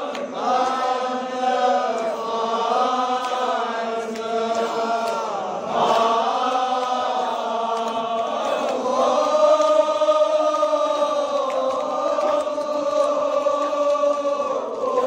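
Men's voices chanting a Kashmiri marsiya together: a slow, melodic line drawn out in long held phrases, with a short break about six seconds in.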